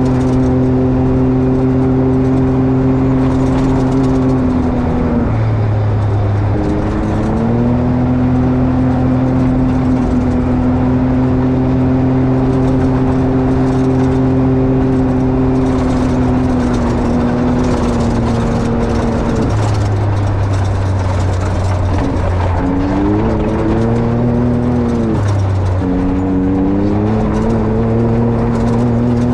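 Can-Am XRC side-by-side's engine running at a steady speed while driving, with the pitch dipping off-throttle and climbing back three times.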